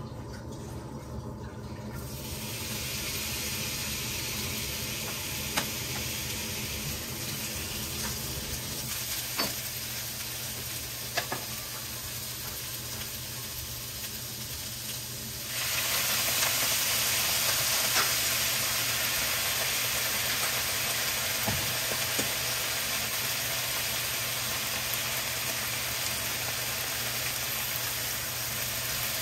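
Sliced onion sizzling in a hot non-stick frying pan, stirred with a spatula that knocks lightly against the pan a few times. About halfway through, the sizzle jumps suddenly louder as soy sauce is poured into the hot pan.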